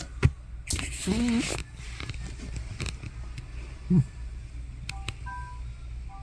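Elderly cat, over fifteen years old, making loud sleeping noises: a noisy snore-like breath with a low wavering voice in it about a second in, lasting under a second, and a shorter low sound about four seconds in. A sharp click comes just after the start.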